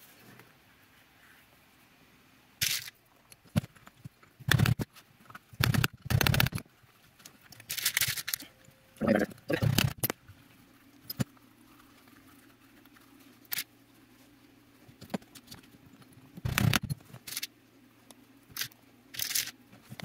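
Irregular mallet strikes on a steel setter, setting copper rivets and burrs through thick leather. The knocks come singly and in quick pairs and clusters, with pauses between, and with small clinks of tools and rivets being handled.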